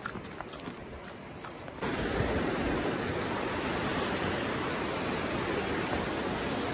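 Steady rush of a fast-flowing mountain river, starting abruptly about two seconds in. Before that, only faint scattered clicks.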